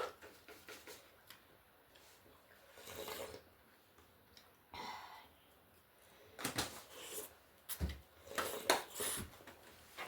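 A person eating noodle soup at close range: several short, separate slurps and chewing noises, spaced out with quieter gaps between.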